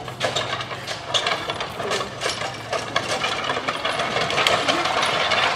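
An engine idling with a steady low hum, under irregular knocks and clatter.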